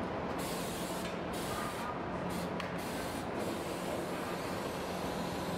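Assembly-plant floor noise: a steady hiss over a low machinery hum.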